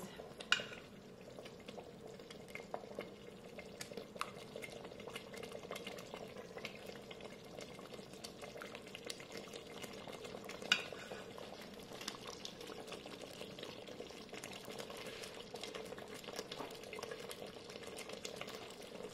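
Ladle scooping thick soup out of an Instant Pot's stainless steel inner pot into a bowl: a run of small scrapes and clinks, with sharper knocks about half a second in and again about halfway through, over a faint steady hum.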